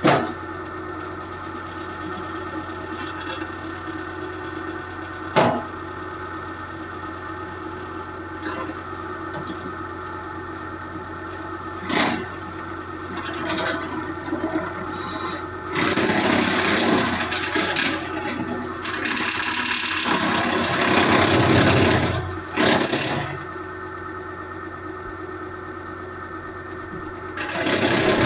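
Engine-driven hydraulic wood chipper running steadily, with a few sharp knocks early on and louder rough, noisy stretches lasting several seconds about halfway through and again near the end.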